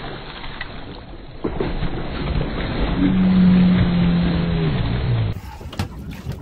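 Water splashing and churning as a fish strikes a trolled lure at the surface, over the noise of the boat, with a long low drawn-out tone in the middle that drops in pitch near the end. About five seconds in the sound cuts to sharp clicking from a spinning reel being cranked.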